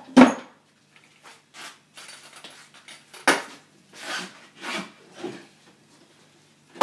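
A series of about six sharp knocks and clatters of hard parts being handled and set down on a table, the first and last the loudest.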